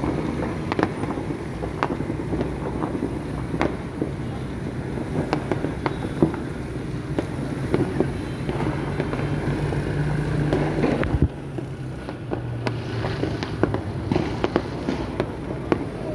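Fireworks and firecrackers going off, many scattered bangs and pops over a steady low hum. The hum and the overall level drop suddenly about eleven seconds in.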